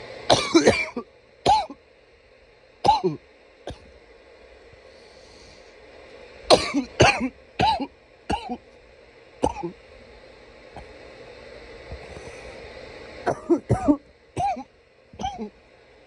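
A person coughing hard in four bouts of several short, sharp coughs each, with pauses of a few seconds between the bouts.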